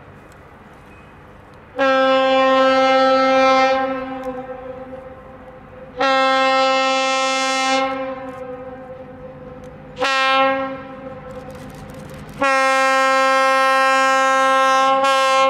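Budd RDC railcar air horn sounding two long blasts, a short one and a final long one: the long-long-short-long grade crossing signal.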